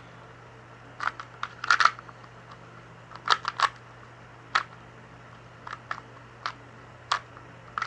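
2x2 Rubik's cube being scrambled by hand: the plastic layers click and clack as they are twisted, in irregular single turns and quick runs of two or three.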